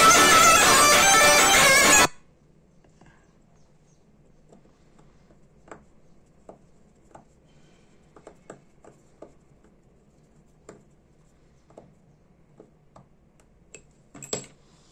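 Loud music that cuts off abruptly about two seconds in. After that, faint, irregular small metallic clicks and ticks as a fine screwdriver turns a small screw in a Ronson Premier lighter.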